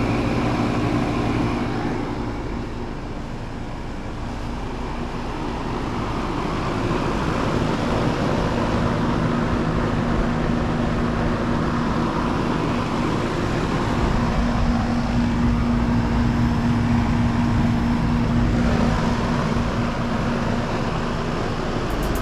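Outdoor central air conditioner condensing units running: a steady motor hum under the rush of condenser fan air, easing a little a few seconds in and then building back.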